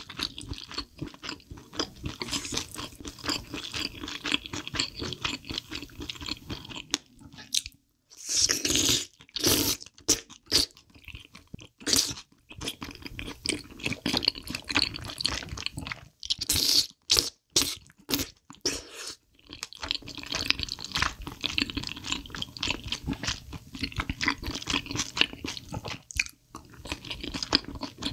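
Close-miked eating: chewing and crunching of spicy braised chicken feet and glass noodles, with wet mouth smacks, broken by a few louder slurping bursts of noodles and broth.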